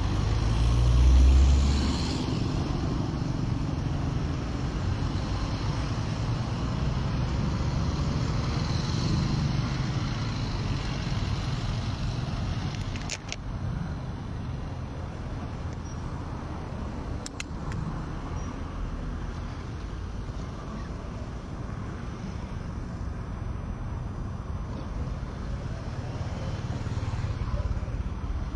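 City street ambience with road traffic running steadily, and a loud low rumble in the first two seconds. Two sharp clicks come about 13 and 17 seconds in.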